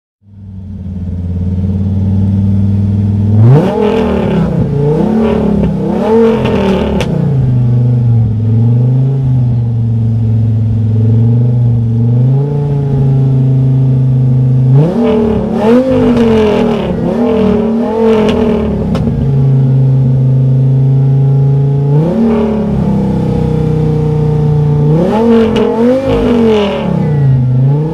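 Alfa Romeo TZ3 Stradale's Viper-derived V10 idling and revved hard while parked, in three sets of quick throttle blips, each blip jumping up in pitch and falling straight back to a steady idle between the sets.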